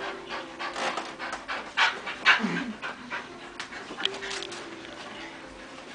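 English bull terrier panting fast, about four breaths a second, worked up from a game of tug; the panting eases off over the last few seconds.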